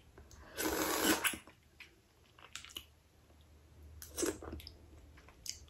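Crab legs being eaten close to the microphone: a short, wet, noisy burst about half a second in, then scattered soft chewing and small mouth clicks.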